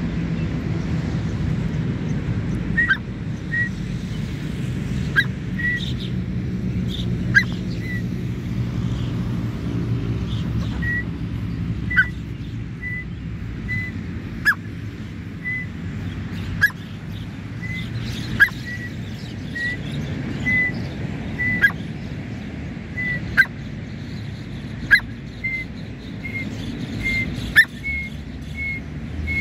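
Grey francolin giving short, high chirping notes about once a second, rising a little in pitch near the end. A sharp click cuts in every two seconds or so, over a steady low rumble.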